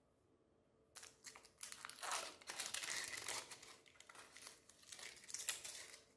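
Wrapper packaging crinkling and tearing as it is handled and opened, a run of dense crackles starting about a second in.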